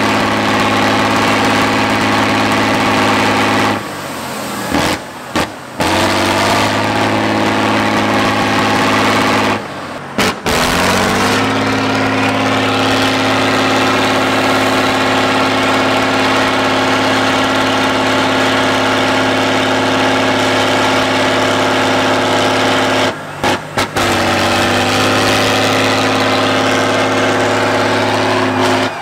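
Diesel engine of an eight-wheeled trial truck working under load as it crawls through mud. The sound cuts out briefly a few times; about ten seconds in the engine revs up and holds higher, then drops back near the end.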